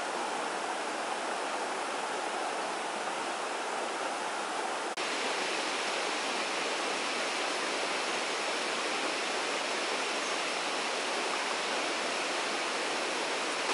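Steady rushing of running water, an even continuous wash of noise, with a faint click and a slight step up in level about five seconds in.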